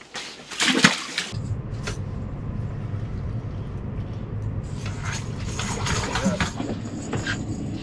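A walleye splashes as it is dropped back down the ice hole about a second in. A steady low machine hum then fills the ice-fishing cabin, with a few light clicks and rattles of fishing gear.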